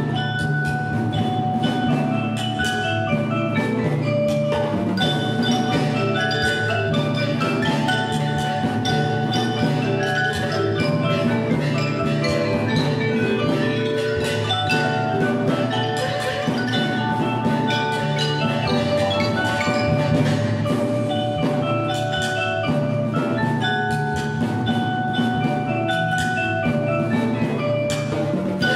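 Children's percussion ensemble playing a Hakka folk-song arrangement: marimbas and xylophones carry the melody over drums, with tubular bells sounding.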